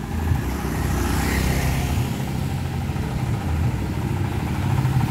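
A motor scooter riding past close by, over the steady low rumble of an engine running.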